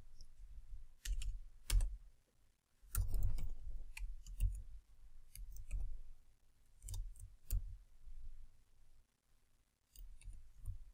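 Typing on a computer keyboard: irregular short runs of keystroke clicks, each with a dull thud beneath it, broken by brief pauses.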